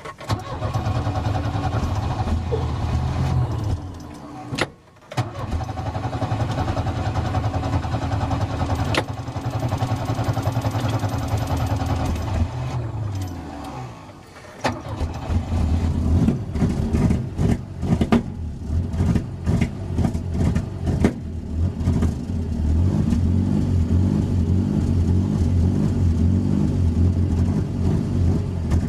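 Engine run on a Microsquirt standalone fuel-injection ECU, heard in two steady stretches that each cut off. From about halfway it runs unevenly, with irregular stumbles and jumps in level: a misfire.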